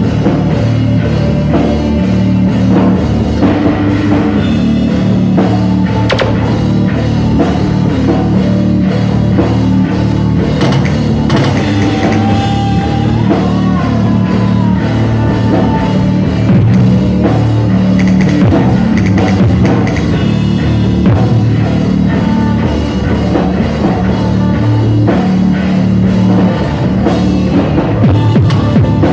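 Loud rock music with a full drum kit and guitar playing continuously.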